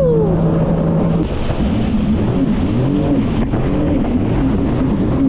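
Jet ski engine running, its pitch rising and falling over and over with the throttle, over rushing wind and water noise.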